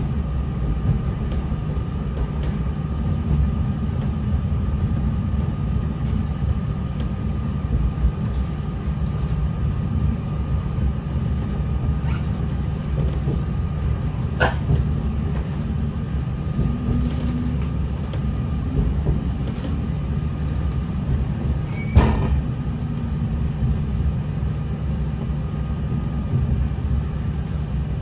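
Heard from inside an NI Railways Class 3000 (CAF C3K) diesel multiple unit: the train's engine and running gear give a steady low rumble, with a thin steady whine above it. Sharp knocks come about halfway through and again about three-quarters of the way in.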